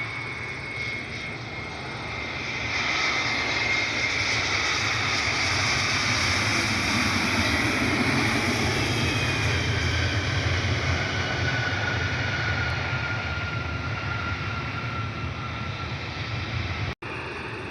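Arriving Delta Connection regional jet's engines. The noise swells for a few seconds, holds, then slowly eases, with a high engine whine falling gradually in pitch as the jet goes past.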